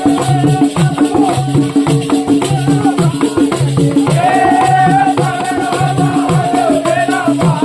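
Indian devotional folk song with a quick, steady drum beat and jingling rattle percussion; a voice sings a held melody over it in the second half.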